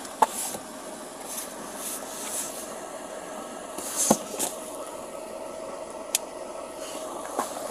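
Steady hum of a running vehicle. A few sharp clicks and knocks come about a quarter second in, about four seconds in (the loudest) and about six seconds in, as objects inside a car are handled during a search.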